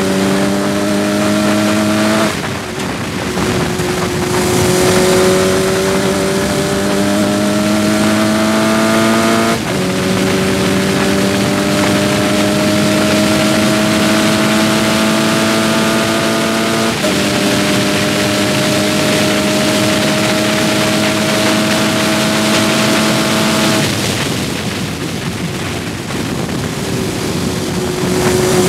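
Onboard sound of a Sports 2000 race car's Ford 2.0-litre four-cylinder engine pulling at full throttle down a straight. Its pitch climbs steadily in each gear and drops with each of three upshifts. About 24 s in the driver lifts off for braking, the engine note falls away under rushing wind and road noise, and it picks up again at the very end.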